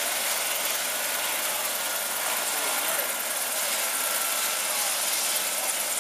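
Air-ambulance helicopter running on the ground with its rotors turning: a steady turbine and rotor noise.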